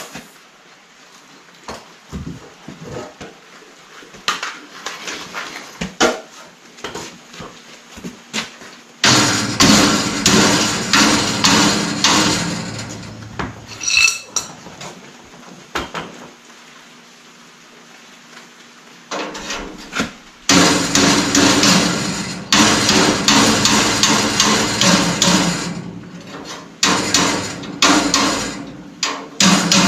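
A hammer striking steel: scattered light knocks at first, then fast runs of blows with short pauses between them. One blow about halfway through leaves a clear metallic ring.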